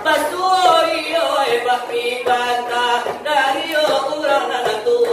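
Selawat dulang: voices singing Minangkabau Islamic devotional verse in a bending, ornamented melody, with a few sharp taps on the brass tray.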